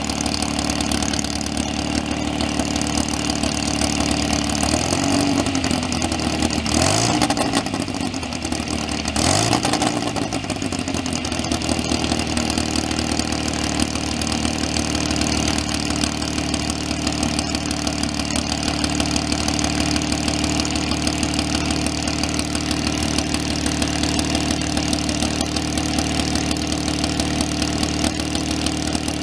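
Twin-engine Indian Scout motorcycle idling steadily, blipped up in revs twice about five and nine seconds in, each time falling back to idle.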